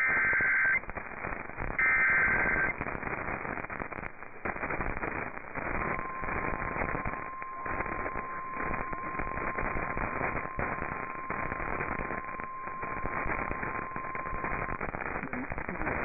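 Emergency Alert System broadcast for a severe thunderstorm warning, heard over AM radio through a web software-defined receiver with heavy crackling static. Near the start come two short bursts of the digital header tones. Then a faint, steady single-pitched alert tone runs under the static for about nine seconds.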